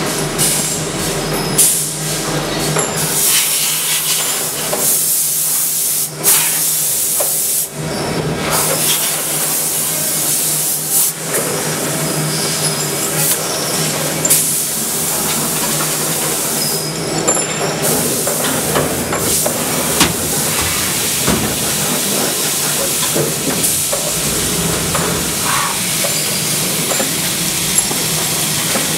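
SYIL V650 vertical machining center at work: a loud steady hiss of coolant spray over a low machine hum, with brief harsher flares of hiss now and then.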